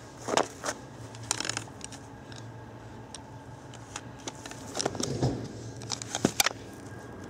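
Footsteps crunching in fresh snow, a few irregular crunches with a short cluster about five seconds in.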